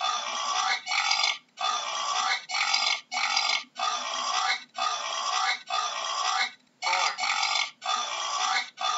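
Boar giving an even series of short, hoarse grunts, a little more than one a second, each separated by a brief pause.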